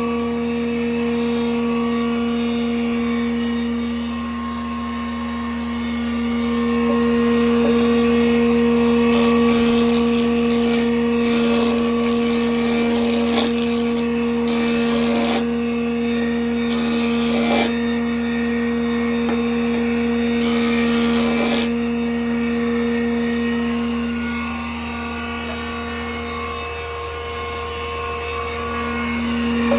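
Band saw running with a steady motor hum. Several short bursts of cutting noise come in the middle as the blade saws through wood sheet.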